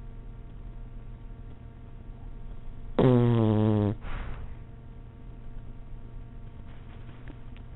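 Puppy snoring: one loud snore about three seconds in that lasts about a second, followed by a softer breath.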